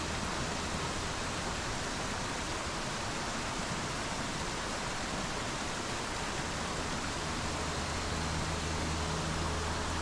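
Steady rush of a shallow mountain stream running over mossy boulders, with the waterfall further ahead, an even hiss of water without let-up.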